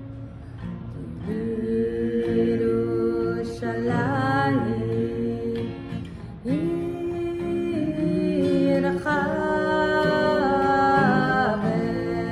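A woman and a man singing a slow Jewish prayer melody together with acoustic guitar, in long held notes that slide between pitches.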